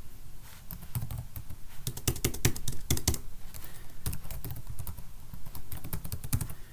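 Computer keyboard typing: an uneven run of key presses with short pauses between clusters of keystrokes.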